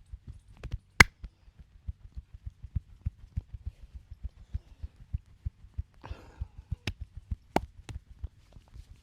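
Hands beating rapidly in a percussive massage, several soft thumps a second, with sharp cracks about a second in and twice more near the end, the first the loudest. A short rustle of rubbing about six seconds in.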